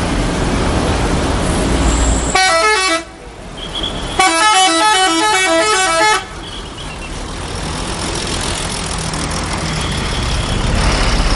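Bus 'telolet' multi-tone horn playing its rapid stepping melody: a short burst, then after about a second's pause a longer run of about two seconds. Between and after the bursts the bus engine runs, growing louder near the end.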